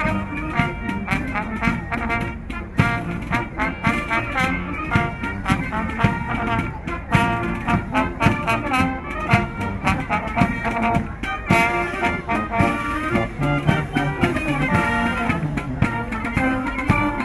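Brass-led music with a steady beat, trumpets and trombones over drums.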